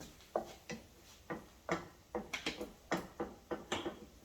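Cooking utensil tapping and knocking against a non-stick skillet as an omelette is pushed toward the middle and turned, with about a dozen light, irregular clicks.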